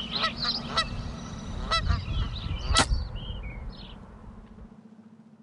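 Geese honking, a string of separate calls over a low background rumble, with a few higher bird chirps about three seconds in. The sound fades out near the end.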